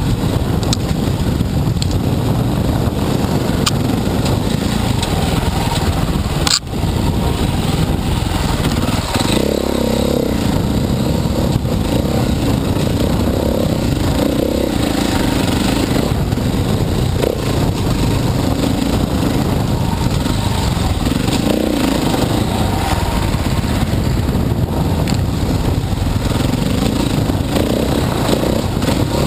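Dirt bike engine running while being ridden, the note rising and falling with the throttle. There is a brief sharp dip in the sound about six and a half seconds in.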